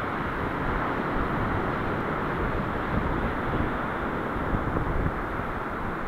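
High wind buffeting the camera microphone in a steady, uneven rush, mixed with the wash of breaking surf.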